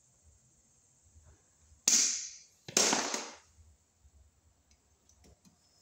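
Blue-handled wire cutters snipping through the black 10-gauge copper conductor of 10/3 cable: two sharp snips about a second apart, around two seconds in.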